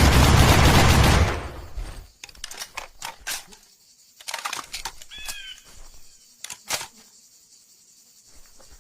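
PKM belt-fed machine gun (7.62×54mmR) firing a sustained burst that stops about a second in, its echo dying away over the next second. Then come scattered sharp clicks and light knocks, and a brief chirp near the middle.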